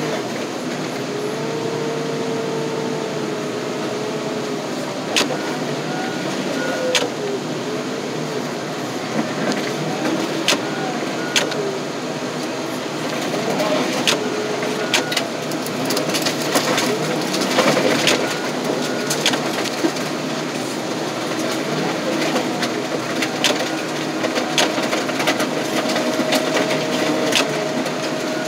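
Car crusher's lid bearing down on a sedan over steady diesel engine noise, the car's metal creaking and squealing as it is flattened, with scattered sharp cracks every few seconds.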